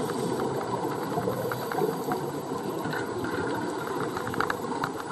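Underwater ambient noise: a steady low rushing with many scattered sharp clicks and crackles.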